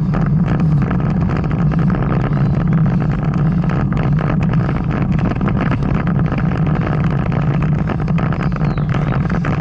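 Steady low rumble of wind and road noise on a camera carried on a moving bicycle, with frequent small clicks and rattles.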